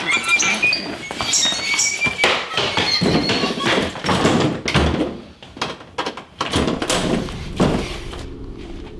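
Struggle: a run of thuds and knocks as a woman is grabbed and dragged away, with door-like bangs among them. The sounds die down near the end.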